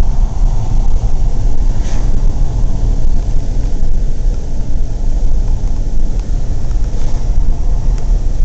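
Steady low rumble of road and engine noise inside the cabin of a VW diesel car driving at road speed.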